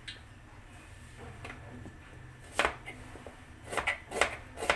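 Kitchen knife slicing shallots on a cutting board: separate sharp taps of the blade hitting the board, a second or more apart at first, then coming in a quicker run of four or five near the end.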